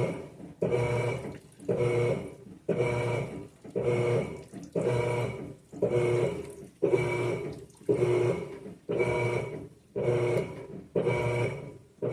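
Electrolux front-loading washing machine in a wash cycle, with water sloshing and a motor hum that repeat about once a second. Each surge starts sharply and fades before the next.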